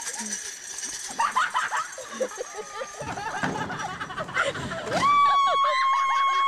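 People's voices calling out and laughing, then about five seconds in a long, high-pitched cry that rises and then holds steady.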